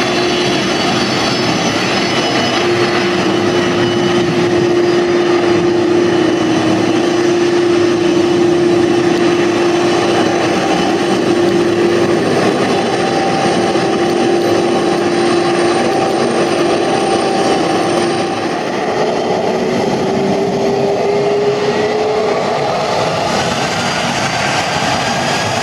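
Boeing 747-400 jet engines running steadily with a loud whine as the airliner taxis and lines up; in the last few seconds the whine rises in pitch as the engines begin to spool up for takeoff.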